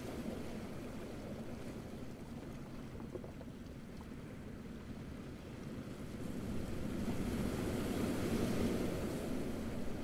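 Small waves washing onto a beach: a steady wash, with one wave swelling louder about seven seconds in and easing off near the end.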